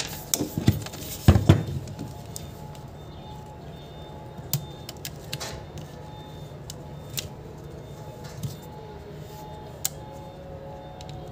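Screwdriver clicking and scraping against an angle grinder's plastic housing and switch terminals as its wiring is worked. A cluster of sharp clicks comes in the first couple of seconds, then scattered single ticks over a steady low hum.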